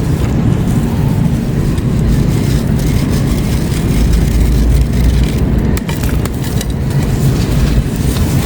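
Grey concrete crumbling in close-up: a steady, dense crunching and grinding with scattered sharp cracks.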